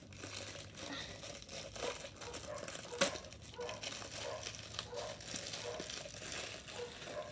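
Clear plastic bag crinkling and crackling as it is handled and opened by hand. A single sharp, louder crackle comes about three seconds in.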